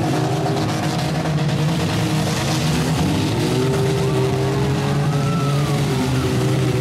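Several demolition-derby truck and van engines running at once, revving up and down so that their pitches rise and fall and overlap, over a steady haze of noise.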